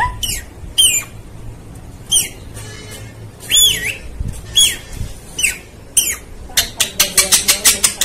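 Rose-ringed parakeet calling: short, shrill squawks and whistles that swoop up and down in pitch, about seven of them spaced through the first six seconds, then a fast run of about ten sharp clicking chirps near the end.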